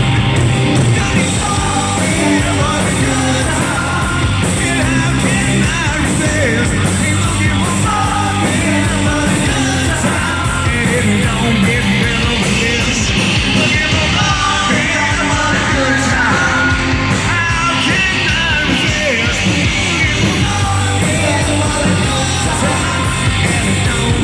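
Live rock band playing loudly, electric guitar and full band, with a voice singing and yelling over it.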